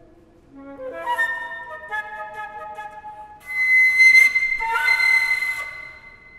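Solo concert flute playing contemporary music: a quick climbing run of notes about half a second in, then two loud, breathy high held notes with a lot of air noise in the tone, fading out just before the end.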